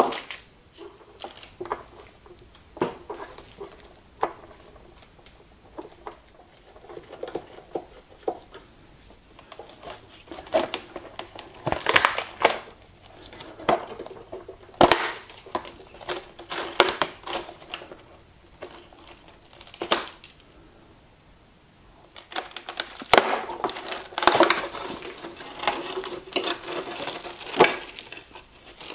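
Hand tools and the charred plastic shell of a fire-damaged Gotway ACM electric unicycle being worked apart: scattered clicks, taps and scraping as a screwdriver turns out screws and the burned casing is pried off. A few sharper knocks stand out, and the clicks and scraping come thicker in the last few seconds as the cover and battery pack are pulled free.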